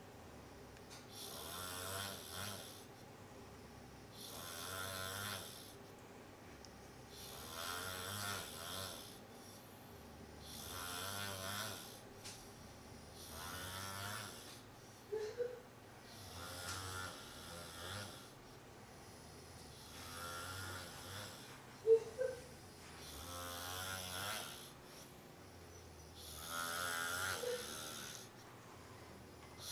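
A man snoring loudly in a slow, regular rhythm, one rasping breath about every three seconds. Twice a brief sharp higher sound cuts in, the louder one about two-thirds of the way through.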